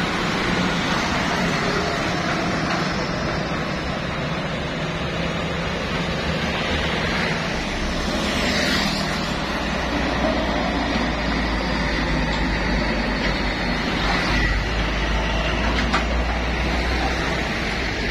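Heavy diesel trucks passing close by on a road, with engine noise and tyre rumble amid other traffic. A deep low engine drone sets in about halfway through as a large truck pulling a flatbed trailer goes past.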